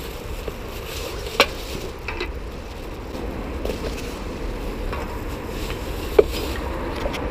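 Rustling and crackling of a plastic rubbish bag and dry leaves underfoot while moving through undergrowth, with two sharp clicks, one about a second and a half in and one near the end.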